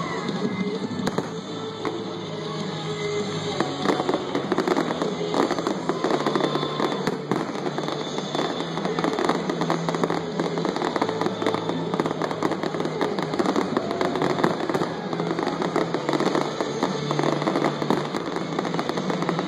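Fireworks display: a dense run of bangs and crackles from bursting shells, thickening and getting louder about four seconds in, with music playing underneath.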